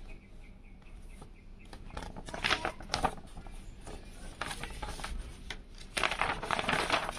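Paper instruction manual rustling and crackling as its folded pages are handled and turned, louder from about six seconds in.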